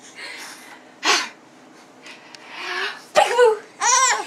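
Baby laughing: breathy gasping laughs, then two short high squealing giggles near the end.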